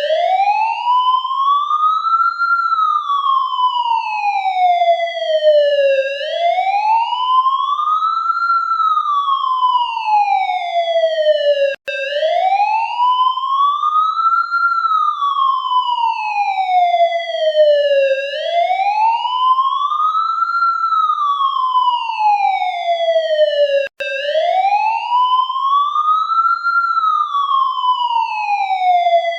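Police siren sounding a slow wail: a single tone that rises for about two and a half seconds, then falls for about three and a half, over and over. It cuts out for an instant about every twelve seconds.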